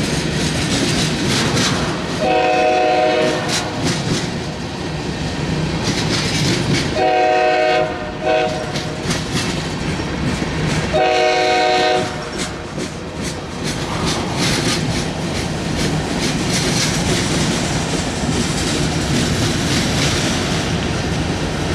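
Freight cars (tank cars, then covered hoppers) rolling past with a steady rumble and clatter of wheels over rail joints. A locomotive horn on another train, a chord of several notes, sounds three times over it: about two seconds in, around seven seconds in with a longer blast, and again about eleven seconds in.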